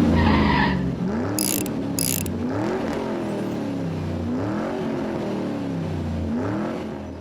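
Power tool motor whirring, its pitch rising and falling again about every two seconds while car body bolts are taken out, with two short hissing bursts about a second and a half in.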